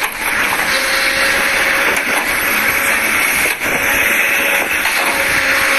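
Kobelco SK200 hydraulic excavator running steadily as its arm and bucket work: a loud, even diesel engine noise.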